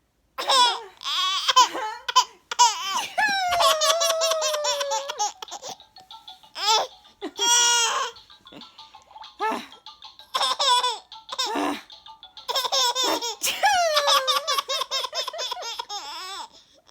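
A baby laughing hard in long runs of rapid, high-pitched laughs, each long bout sliding down in pitch at its end, with shorter bursts of laughter in the pauses between.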